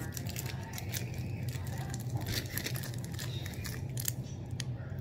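Plastic candy-bar wrapper crinkling as it is handled, a scatter of sharp crackles.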